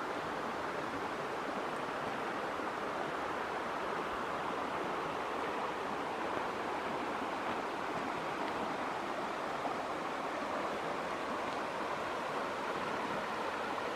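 Creek water flowing, a steady, even rush.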